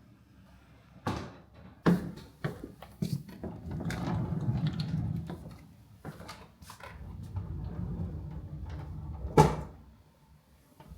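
Several knocks and clunks, like a lid, drawer or door being opened and closed, with softer handling noise in between; the loudest knock comes near the end.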